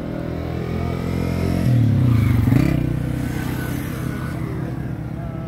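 A motor vehicle passing on the road: its engine grows louder to a peak about two and a half seconds in, the pitch bending as it goes by, then fades away.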